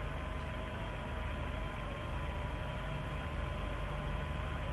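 Steady rushing noise with a low rumble and two faint steady hums: the ambient sound of the launch pad on the live feed, with the rocket still standing on the pad.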